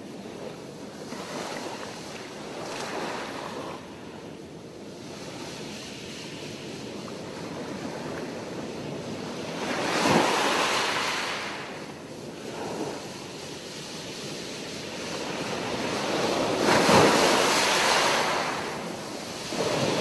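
Ocean surf: waves breaking and washing in, rising and falling in slow swells, loudest about ten and seventeen seconds in.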